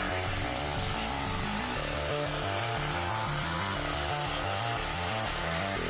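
CNC plasma cutter torch cutting thin sheet metal: a steady, loud hiss from the arc and its air jet, which comes on right at the start, over background music.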